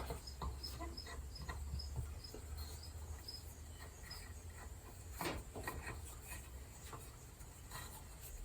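Faint handling clicks and rubbing as PTFE (Teflon) thread tape is wrapped onto the threads of a pressure gauge fitting, with a faint high chirping repeating about three times a second in the first half and a sharper click about five seconds in.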